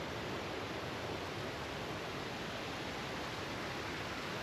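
Steady, even rushing noise outdoors, with no distinct sounds standing out.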